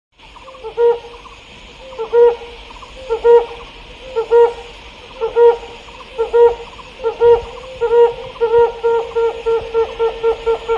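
A series of low hooting calls, about one a second at first and then quickening to about three a second near the end, over a steady high hiss.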